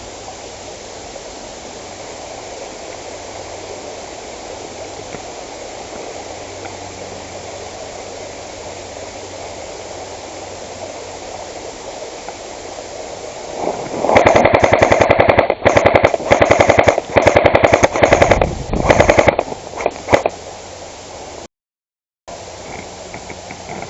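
Airsoft gun firing on full auto: several bursts of rapid, evenly spaced shots over about six seconds, after a long stretch of steady background hiss.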